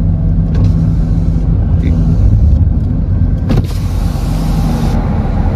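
A car on the move, heard from inside the cabin: steady engine and road rumble. About three and a half seconds in there is a click, followed by a burst of hiss lasting just over a second.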